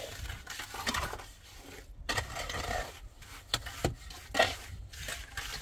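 Scattered sharp knocks amid stretches of scraping and rubbing, as of hard materials being handled.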